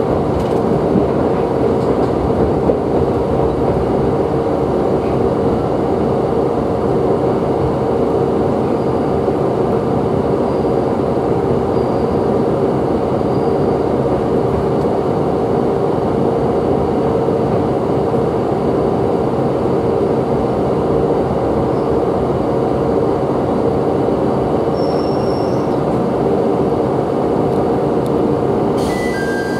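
Tsugaru Railway diesel railcar heard from inside the cabin: a steady engine drone over wheel and track noise as it runs and slows into a station. The train is standing by the end, where two short electronic tones sound.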